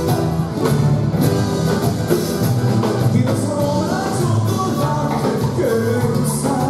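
Ecuadorian folk dance music with a steady beat and a sung melody.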